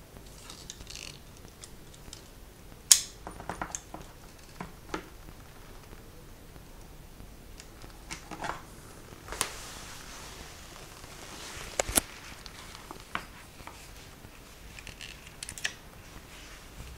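Handling sounds of a stainless .45 ACP revolver and its plastic hard case: scattered clicks and light taps of metal and plastic, with a sharp click about three seconds in and a quick double click near twelve seconds, and a soft rustle in between. By the end the revolver's cylinder has been swung open.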